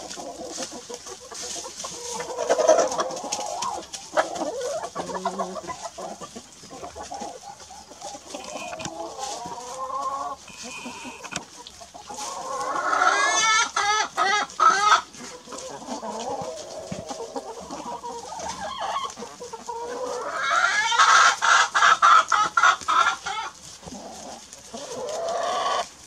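Domestic hens clucking as they forage. Two louder, drawn-out runs of calls stand out: one about halfway through and a longer one near the end.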